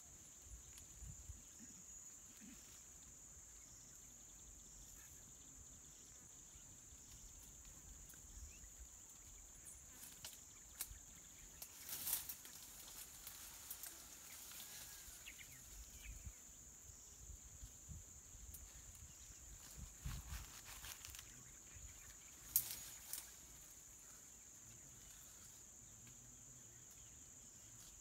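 A steady, high insect drone runs throughout. It is broken by a few brief snaps and rustles, the sharpest about halfway through and again around three-quarters of the way in.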